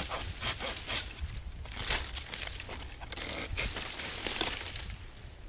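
Small hand saw cutting through a fallen oak branch in irregular rasping strokes, with dry leaves crunching.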